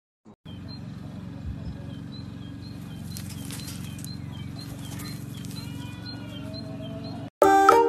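Outdoor ambience: a steady low wind rumble on the microphone with faint, repeated bird chirps. It cuts off suddenly near the end, and loud music starts.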